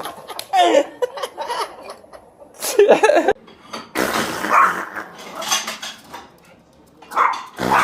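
Dishes and cutlery clattering in a run of short strikes, with a dog's noises among them.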